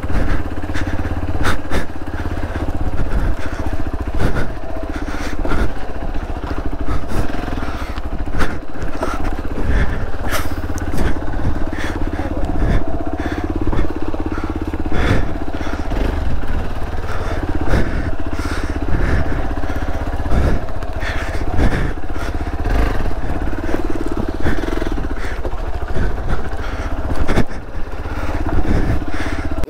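Hero Xpulse 200's single-cylinder engine running under load as the motorcycle climbs a steep, rough off-road trail, with frequent sharp knocks throughout.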